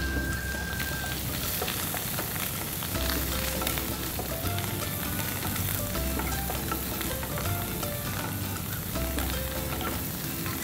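Prawns frying in butter in a non-stick pan, with a steady sizzle as a wooden spoon stirs them. Background music with a bass line plays underneath.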